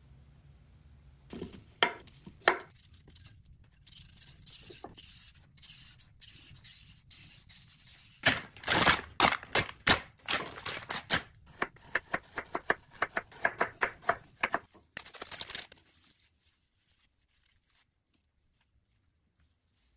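A few sharp taps, then a long stretch of crackly plastic crinkling and tearing as the plastic wrap is opened on a block of raw tuna, ending in a short steady rip.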